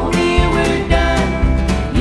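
Country band music played live: acoustic guitar over upright bass and drums, with bending melodic lines from fiddle or voice.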